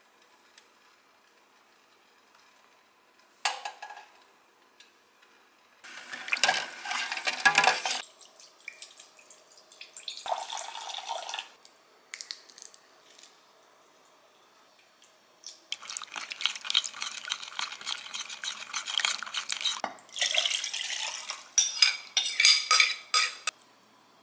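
Kitchen preparation sounds in several short bursts with quiet gaps between: a steel pot, a glass bowl and utensils clinking and clattering, and liquid being poured and stirred.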